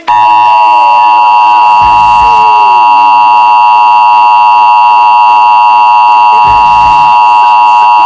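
Emergency Alert System attention signal: the two-tone EAS alert tone, held as one long, steady, loud electronic tone that marks the start of an emergency broadcast.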